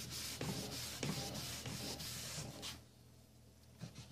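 A cloth rag rubbing back and forth on the bare wooden top of an old box, wiping on a dark finish, in short scrubbing strokes that stop a little under three seconds in.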